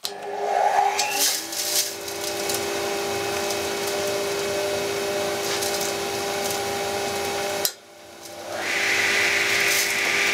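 Electric motor of a workshop power tool running at a steady whine; about three-quarters of the way through it cuts off abruptly and a motor spins up again to a steady run.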